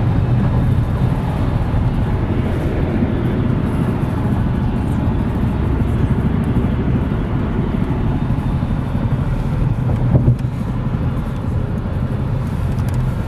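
Steady low road and engine rumble inside a car's cabin at highway speed, with a brief thump about ten seconds in.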